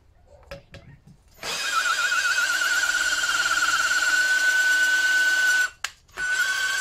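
Ryobi cordless drill spinning a valve-lapping tool to lap the inlet valve of a Lister D diesel into its seat: a steady motor whine that starts about a second and a half in, stops briefly near the end, and starts again. A few light clicks come before it starts.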